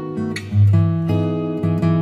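Background music of strummed acoustic guitar chords, with a strong low note coming in about half a second in.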